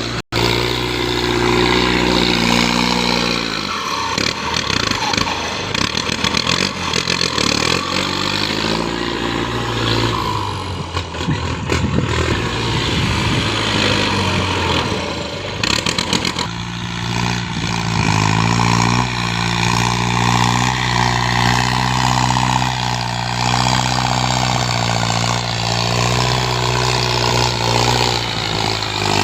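An engine running, its pitch rising and falling repeatedly as it is revved up and let back down.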